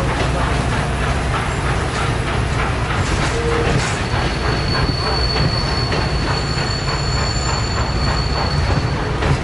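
Norfolk Southern passenger cars rolling past on the rails, their wheels clacking over rail joints in a steady rhythm over a continuous rumble. A thin, high, steady wheel squeal sets in about four seconds in and holds almost to the end.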